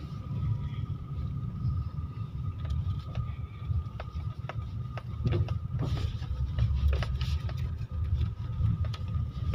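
Road and engine noise heard inside a moving car's cabin: a steady low rumble, with scattered small clicks and knocks.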